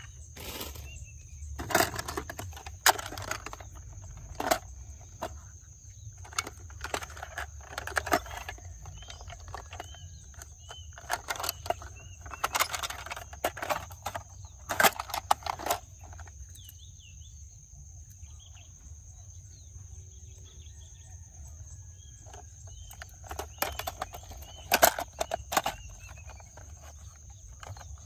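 Toy cars being handled and moved about, giving irregular clusters of sharp clicks and clattering knocks over a steady background hum, with faint bird chirps.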